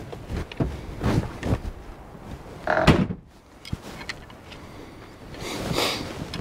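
A few clunks and knocks, the loudest about three seconds in, then a short rustling swell near the end.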